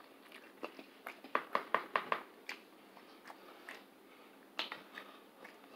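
A person chewing a mouthful of saucy chili cheese fries: soft, wet mouth clicks and smacks. A quick run of about five clicks comes about a second and a half in, and another sharp one near the end.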